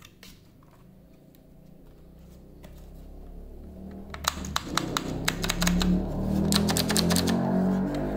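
Mechanical-keyboard-style buttons on a soundbar clicking, many quick key clicks starting about four seconds in. Under them, music rises steadily in level.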